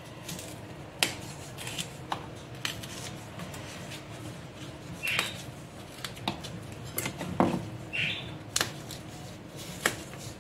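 Fresh broad bean (fava) pods being snapped and split open by hand: a string of irregular crisp snaps and clicks, with two or three brief squeaks.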